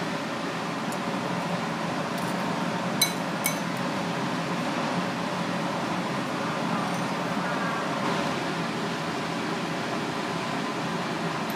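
Steady hum of a kitchen fan or ventilation, with two sharp clinks of utensils on a hard surface about three seconds in, half a second apart.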